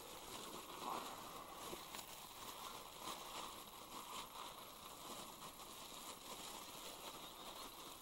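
Faint crinkling and rustling of a plastic bag of dog treats being handled.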